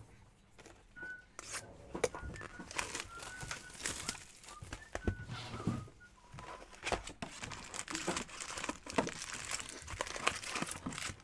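Plastic wrap and foil trading-card packs crinkling and tearing in irregular crackles as a hobby box is opened and its packs are pulled out by hand.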